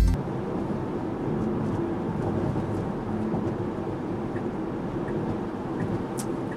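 Steady tyre and road noise of a Tesla electric car driving, with faint turn-signal ticks about every 0.7 seconds.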